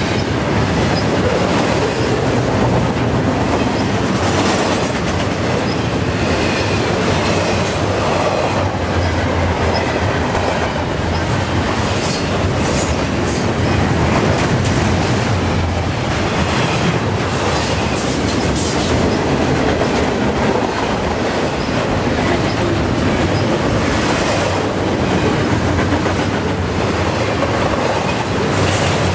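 A CN double-stack intermodal freight train of container well cars rolling past close by. It makes a steady loud rumble and rattle of steel wheels on rail, broken by irregular clicks as the wheels cross rail joints.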